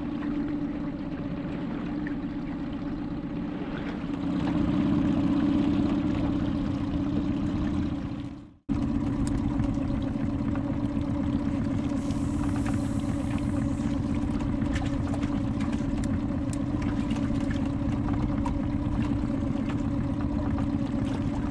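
Outboard motor on a small fibreglass fishing boat running at a steady hum. The sound drops out for an instant about eight seconds in, then carries on unchanged.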